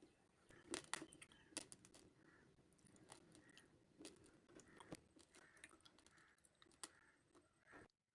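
Faint scattered clicks and soft rustling of small things being handled, cutting off to silence just before the end.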